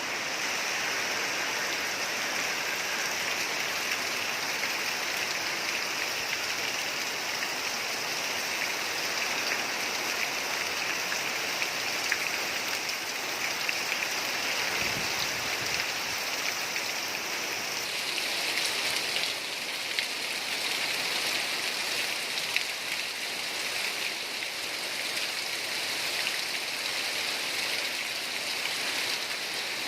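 Heavy rain pouring down in a rainstorm: a steady dense hiss with scattered drops ticking, turning brighter about two-thirds of the way through.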